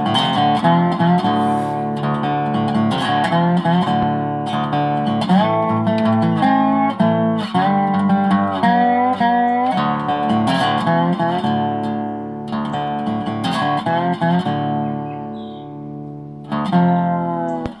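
Background music: acoustic guitar playing plucked and strummed notes with bending pitches.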